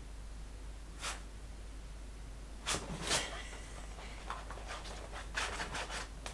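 A dog playing with a bone: a handful of short rustles and scuffs, with a louder pair about three seconds in and a cluster near the end.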